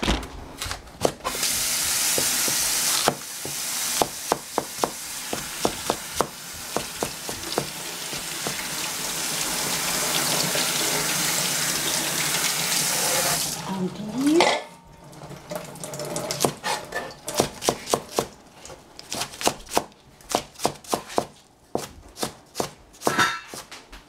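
Cleaver slicing Belgian endive on a cutting board: quick, sharp knocks of the blade striking the board. For the first half a steady rushing noise runs under the knocks and cuts off abruptly about halfway; after that the knocks come in quick runs.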